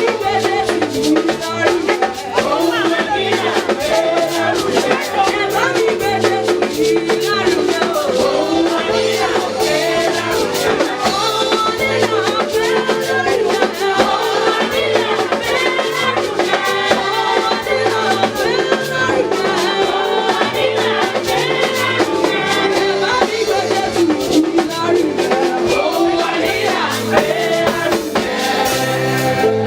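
Music with a steady drum beat and a repeating bass line, with voices singing over it.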